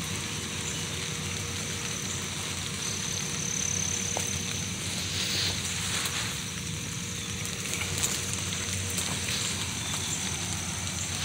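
Heavy rain falling through woodland, a steady hiss over low rumbling and rustling as the microphone is jostled against clothing.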